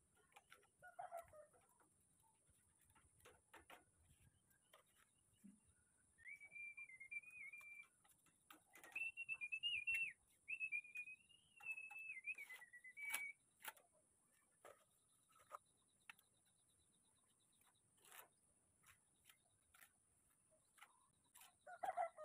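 Faint scrapes and taps of a trowel working wet cement mortar around a steel rebar column cage. In the middle, a high, wavering whistle comes in three stretches over about seven seconds.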